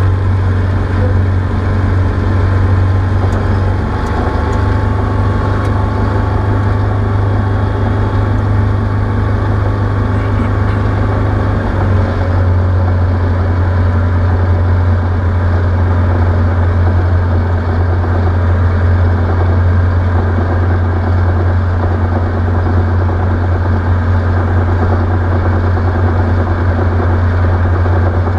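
Single-engine light aircraft's piston engine and propeller running steadily in flight, a constant low drone, with a slight shift in the engine note about twelve seconds in.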